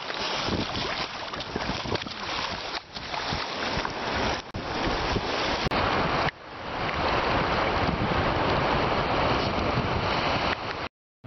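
Shallow surf washing and churning at the water's edge, with wind buffeting the microphone; the sound cuts off abruptly near the end.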